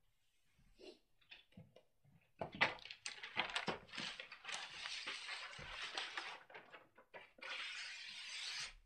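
Razor knife slicing through pattern paper freehand: a long scratchy cut with a brief pause near the end, then a steadier drawn-out stretch. A few light paper-handling clicks and rustles come before it.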